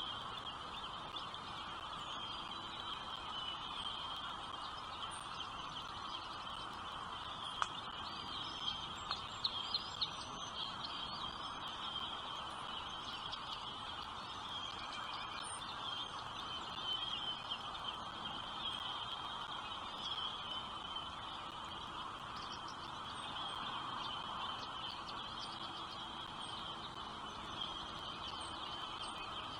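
Nestling songbirds' steady high begging calls over a background hiss, with a cluster of sharper chirps and clicks about eight to ten seconds in.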